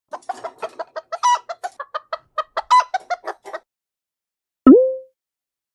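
Chicken clucking: a fast run of short clucks lasting about three and a half seconds. About a second later comes a single loud cartoon-style pop with a quick upward pitch slide.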